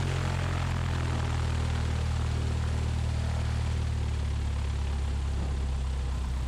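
Cessna 172's single piston engine and propeller running steadily at low taxi power, a constant low drone.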